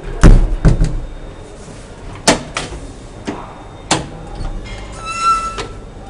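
Elevator door and its latch: a burst of heavy clunks, then several single sharp clicks. A short steady tone sounds near the end.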